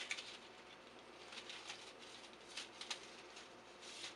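Faint, irregular crackling and ticking from a hot, freshly brazed copper refrigerant fitting and the wet rag wrapped round it as they cool.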